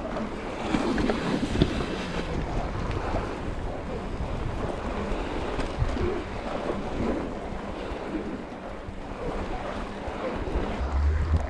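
Mountain bike tyres crunching through fresh snow, a continuous crackling hiss, with wind buffeting the microphone.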